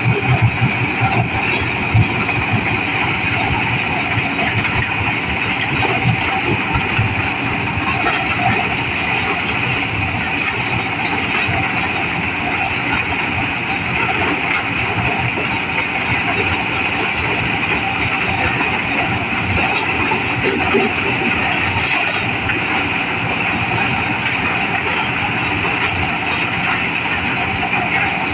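Diesel-powered mobile corn sheller running under load as whole, unhusked cobs are fed in: a steady, dense mechanical din of engine and threshing drum, with some uneven low knocks in the first few seconds.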